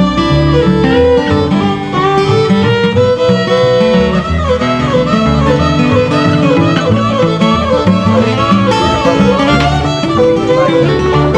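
Instrumental country music: a fiddle playing a wavering melody over guitar and a steady bass beat.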